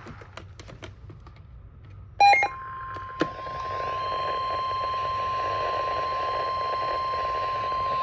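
NOAA Weather Radio warning alarm tone, the steady 1050 Hz tone, coming on about two and a half seconds in after a brief loud burst of tones and holding over radio static. It is the alert signal that a warning is about to be read.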